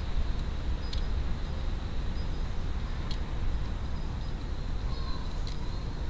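A dunnock pecking seed from a plastic feeder tray, giving a few sharp clicks over a steady low rumble.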